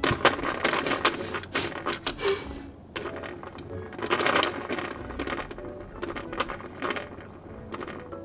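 Plastic paddle wheel on a toy steamboat popcorn bucket being spun by a cat's paw. It gives off a fast clicking rattle in three spells, each a couple of seconds long.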